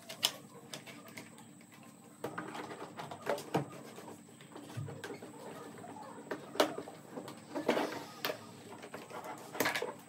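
Plastic fairing panels and parts of a toy ride-on motorcycle being handled and fitted together, with irregular clicks, knocks and rustling.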